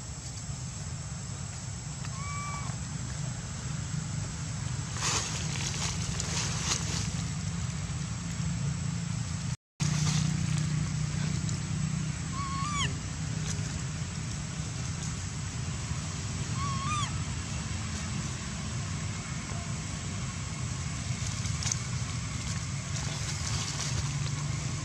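Steady outdoor background with a low hum, broken by three short high calls that rise and fall, with some rustling. The sound drops out for an instant near the middle.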